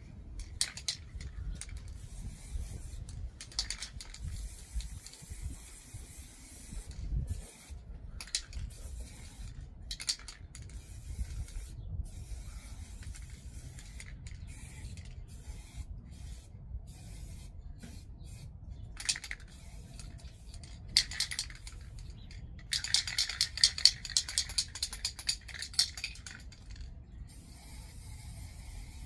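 Aerosol spray can spraying in short hissing bursts, a few seconds apart, with a longer run of quick bursts about three-quarters of the way through.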